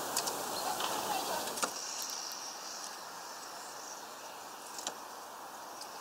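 Steady outdoor background hiss with a few light, sharp clicks from great tits tapping and hopping on a twig feeder, the loudest about one and a half seconds in. A faint high note sounds briefly about two seconds in.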